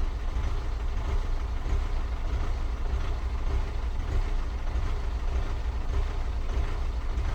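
BMW N47 four-cylinder diesel engine idling roughly, a steady low rumble that wavers unevenly. The rough idle comes from a bad electrical connection at one of the fuel injectors.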